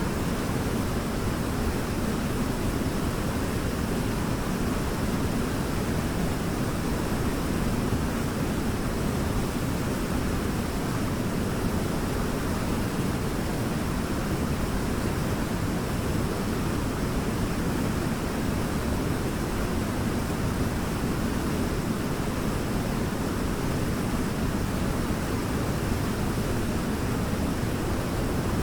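Waterfall: a steady, even rush of falling water, strongest in the low range, without a break.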